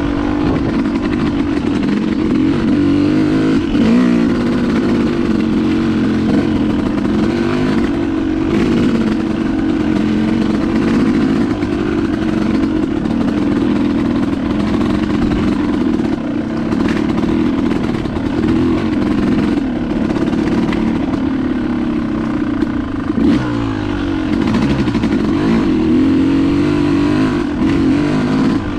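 Dirt bike engine running while riding a dirt trail, its pitch rising and falling with the throttle, with scattered knocks and clatter from the bike over the rough ground.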